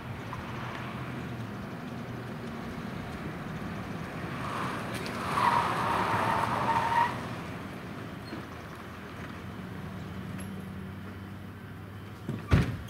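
A pickup truck's engine running as the truck drives and turns across an asphalt lot, its tyres squealing briefly through the turn about five seconds in. Near the end comes one sharp knock, the truck's door being opened.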